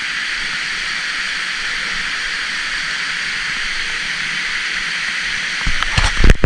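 Steady rush of water pouring over a small spillway. Near the end, a few loud knocks.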